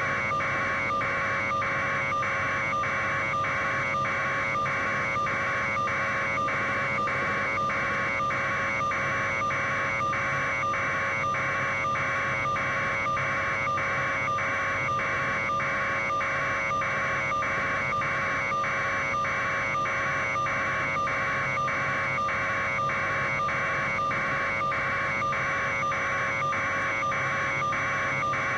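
Steady electronic buzz, pulsing evenly about one and a half times a second, over a constant hum: static-like interference noise on the audio feed.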